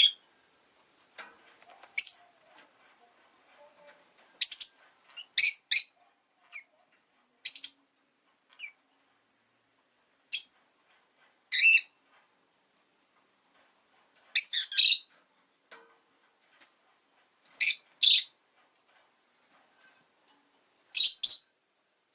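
Rosy-faced lovebird giving short, shrill chirps, often two in quick succession, with pauses of a second or more between them.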